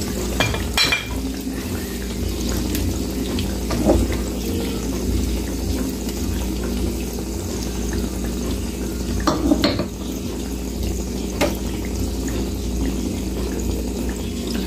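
Tempura shrimp deep-frying, submerged in oil in a pan: a steady sizzle, with a few light clinks of bowls and utensils.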